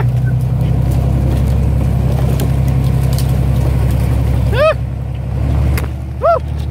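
Dodge Ram 2500's diesel engine running steadily under load as it tows a stalled SUV through deep water on a strap. Short shouts break in twice near the end.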